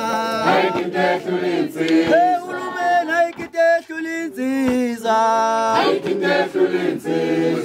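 A group of men singing a chant together in chorus, with sharp knocks roughly every second or so.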